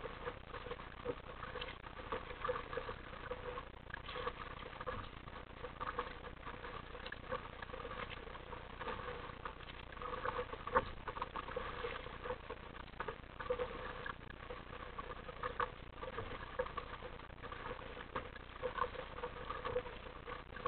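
Sea water lapping and slapping against the plastic hull of an RTM Mambo sit-on-top kayak as it moves through light chop: a continuous, irregular patter of small splashes.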